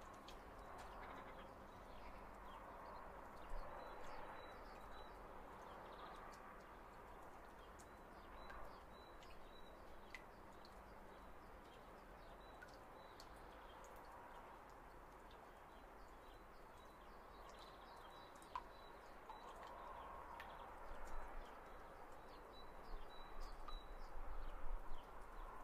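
Faint steady background ambience with small high chirps recurring throughout, and scattered soft clicks that grow louder and more frequent near the end.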